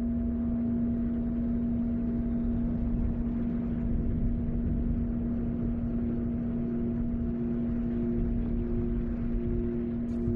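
Ambient instrumental drone: a steady low hum and a fainter higher tone over a rumbling wash, with a pulsing tone that enters about six seconds in and repeats a little under twice a second.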